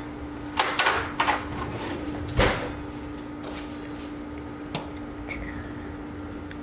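A utensil knocking and clinking against a stainless steel pot while a hot dog is lifted out of it: several sharp knocks in the first two and a half seconds and one more near five seconds, over a steady low hum.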